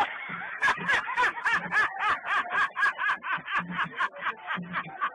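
A man laughing in a long run of short, squeaky, high-pitched laugh bursts, about four a second.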